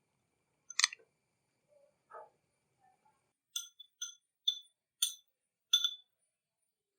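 A spoon clinking against a dish as mushrooms are added to the pan: a single clink about a second in, then five light ringing taps in quick succession over the last part.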